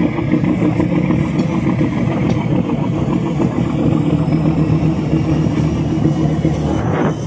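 A fishing boat's diesel engine running steadily under way, a deep hum with a fast even pulse.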